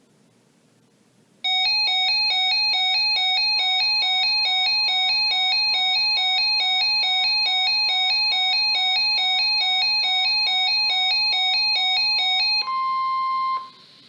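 Weather radio receiver sounding its electronic alert alarm, loud beeps alternating between two pitches about three times a second, with the NOAA Weather Radio 1050 Hz warning alarm tone faintly beneath. The alarm stops near the end and the steady 1050 Hz tone is heard alone for about a second, then cuts off into faint hiss.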